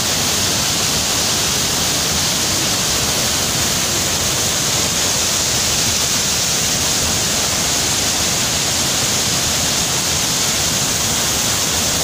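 Steady, loud rush of a waterfall's falling water.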